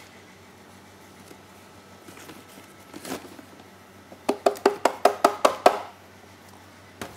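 Greased, floured metal loaf tin being knocked to shake out the excess flour: a quick run of about nine sharp, ringing taps in a second and a half.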